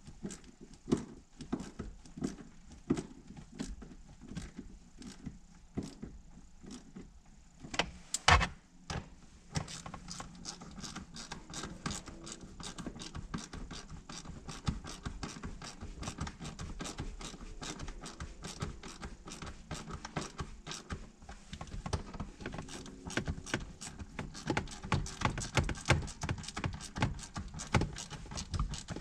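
Hand tools and small metal parts clicking and clinking while the shifter area in the center console is worked on, with one louder clatter about eight seconds in and a denser run of small clicks through the second half.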